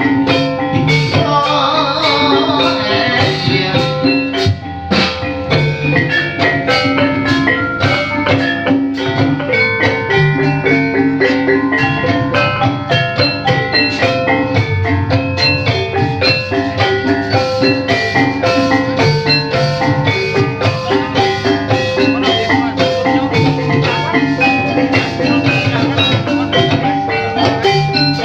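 Javanese gamelan music: a steady, dense run of struck mallet-instrument notes over drums.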